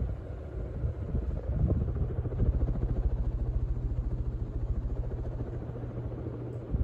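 Hunter Low Profile ceiling fan's 177 mm motor running on high speed: a steady low hum with a rapid, even pulsing of the air moved by the blades.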